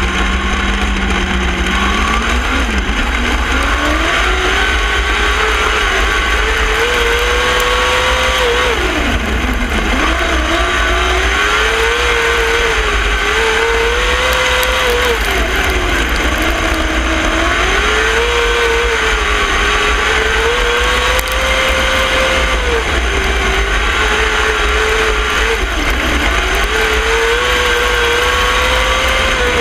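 Winged dirt-track sprint car's V8 engine at racing speed, heard from the car itself. It runs at a steady low note for the first second or so, then climbs high and repeatedly falls off and rises again about every six seconds as the car lifts into the turns and gets back on the throttle down the straights.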